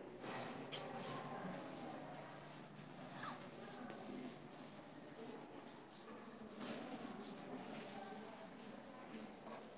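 Blackboard being wiped clean by hand: faint rubbing strokes against the board, with a sharp knock about two-thirds of the way through.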